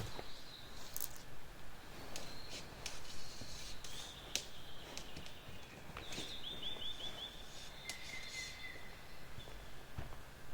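Wild birds singing in a pine forest: thin high whistles and a quick run of rising chirps just past the middle, then lower whistled notes. Scattered light clicks and knocks sound over a low steady background.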